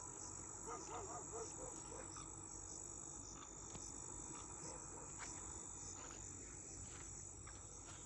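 Faint night-time insect chorus: a steady high trill, with a few soft clicks and faint wavering calls about a second in.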